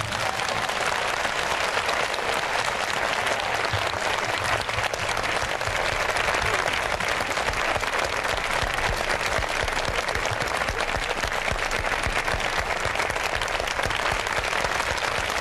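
Large theatre audience applauding, a dense, steady clapping.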